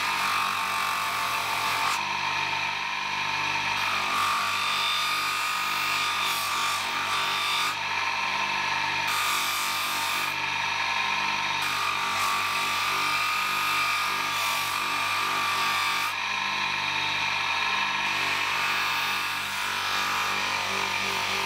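Electric bench polisher running steadily with a cloth buffing wheel, with a steady low motor hum. A bar of polishing compound and then a small metal part are pressed against the spinning wheel, and the rubbing noise shifts every few seconds as the contact changes.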